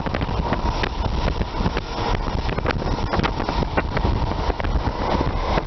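Running noise of a High Speed Train heard from inside a coach: a steady rumble of wheels on rail, with frequent sharp clicks and knocks and wind buffeting the microphone.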